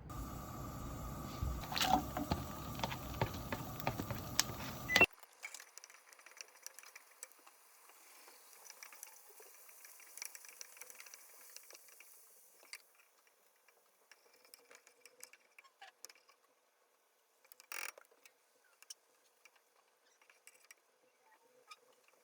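Light clicks and clinks of small objects being handled. They are busier over a louder background for the first five seconds, then drop suddenly to faint, scattered ticks.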